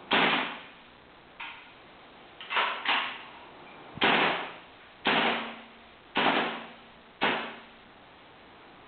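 JG M4 gas blowback airsoft rifle (WA-type system) firing single shots, each a sharp crack of gas and the bolt slamming back and forth. Seven shots come at roughly one a second, two of them in quick succession, with a fainter click in between.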